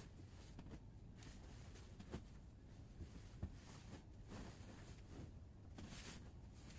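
Faint rustling and swishing of bed linen as sheets are pulled and spread over a bed, with a louder swish near the end as a sheet is shaken out. There are two soft knocks in the middle.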